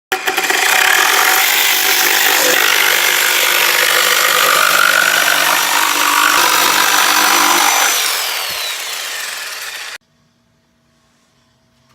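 Power saw cutting wood, running loudly for several seconds, then winding down with a falling whine before it cuts off suddenly.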